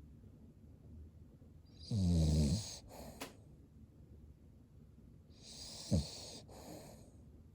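Cavalier King Charles Spaniel snoring in its sleep: a longer, louder snoring breath with a low rumble about two seconds in, and a shorter, sharper one near six seconds.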